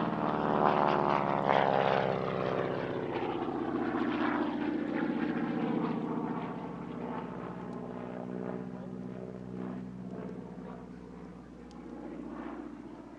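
AT-6C Harvard's Pratt & Whitney R-1340 Wasp radial engine and propeller passing by. Its pitch drops as it goes past, then it holds steady while slowly fading.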